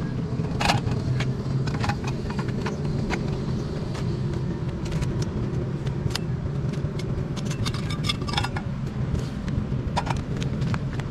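The slats and metal frame of a folding roll-top camping table clicking, clacking and rattling as it is rolled up, folded and packed, over a steady low rumble.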